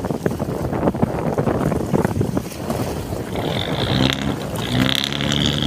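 Boat engine running nearby: a steady low hum with a high whine that comes in clearly past the middle, over the crackle of wind buffeting the microphone.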